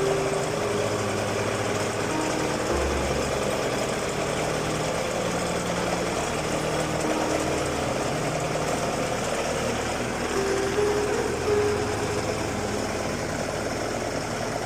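A compact crawler excavator's 51 hp multi-cylinder water-cooled diesel engine running steadily.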